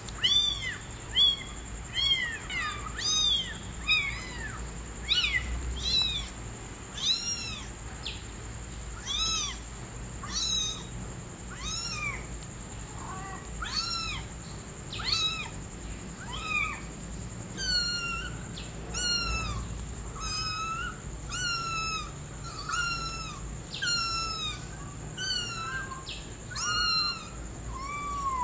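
Kitten mewing over and over, high thin mews about one a second, turning shorter and more even in the second half.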